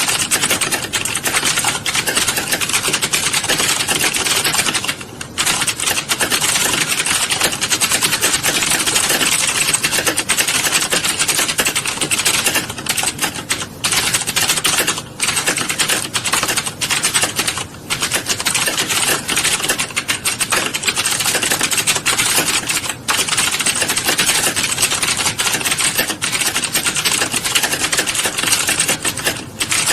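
Fast, continuous keyboard typing, a dense stream of key clicks that breaks off briefly a few times.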